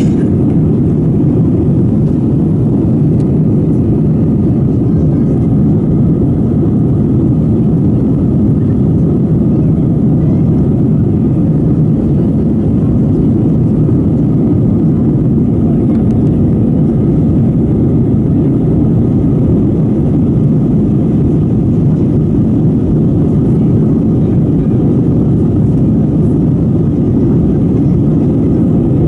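Steady cabin noise inside an Airbus A320 climbing after takeoff: engines and rushing air blend into a dense, even low rumble that does not change.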